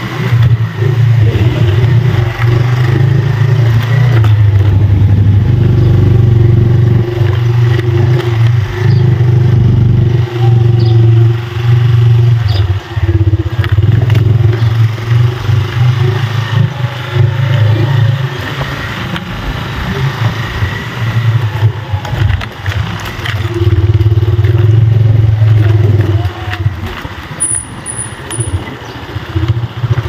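Motorcycle engine running steadily at a low pitch while riding a dirt road, easing off about two-thirds of the way through and again near the end.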